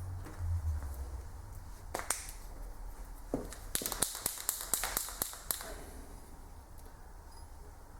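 A quick run of sharp clicks and taps from tools and parts being handled at the workbench: a couple of clicks about two seconds in, then about ten in quick succession, roughly five a second, around the middle.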